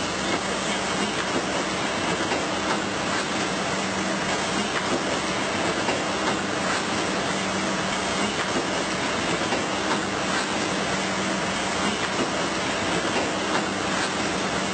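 Steady machinery noise of a shoe factory floor: an even hiss with a low hum and scattered light ticks, unchanging throughout.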